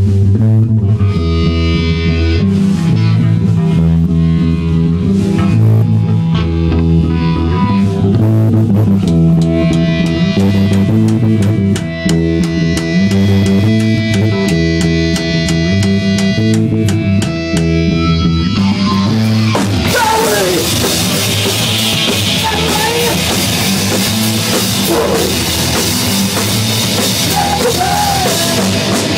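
Rock band playing live: electric guitar and bass riff over drums. About two-thirds of the way through, the full band comes in louder, with cymbals ringing.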